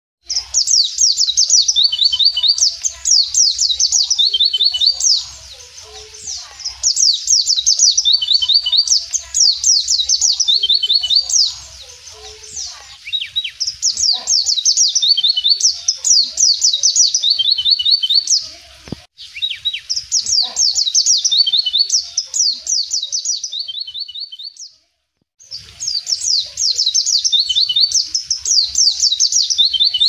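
White-eye (pleci) singing in the wild: long runs of fast, high twittering notes, each lasting several seconds, repeated with short pauses between. The sound drops out briefly about 25 seconds in.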